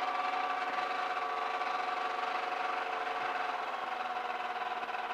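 Light aircraft's piston engine idling steadily just after start, heard through the cockpit intercom's cable feed as a steady hum of several even tones.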